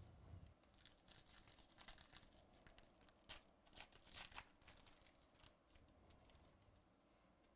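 Trading-card pack wrapper being torn open and crinkled by hand: a faint run of crackles and rips, loudest about halfway through.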